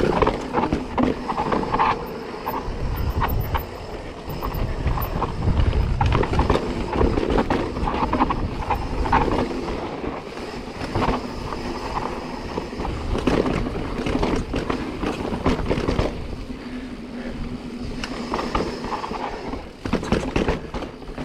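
2021 Specialized Stumpjumper Evo mountain bike rolling down steep rock: tyres grinding and bumping over sandstone with frequent sharp knocks and rattles from the bike, over a steady rumble of wind on the chest-mounted microphone.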